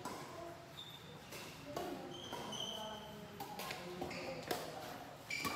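Badminton rally: sharp racket strikes on the shuttlecock and footsteps on the court, with several short high squeaks of shoes on the floor.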